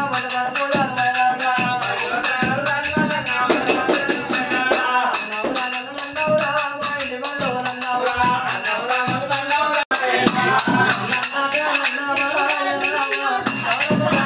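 Folk devotional music for a village ritual: singing over fast, even percussion with jingling, rattling strokes, about four or five a second. There is a brief dropout about ten seconds in.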